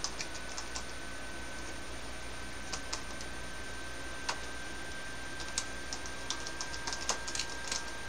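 Typing on a computer keyboard: scattered keystroke clicks with pauses between them, then a quick run of keystrokes over the last few seconds.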